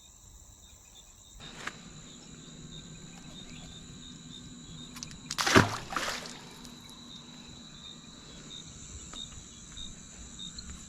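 Crickets or other insects chirping steadily. About halfway through, one brief loud splash as the released fish is dropped back into the water.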